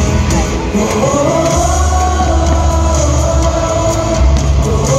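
Loud show music over a stadium sound system, with heavy bass and a sustained melody line that swells and falls, starting again just before the end.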